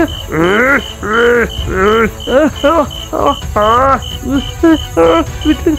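Loud shouting voices in drawn-out, rising and falling cries, over a steady background of cricket chirps repeating about three times a second.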